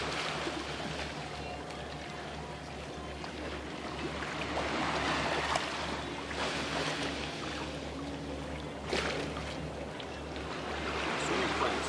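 Shallow water lapping and trickling around a wader's legs, swelling and easing, with a sharp click about nine seconds in.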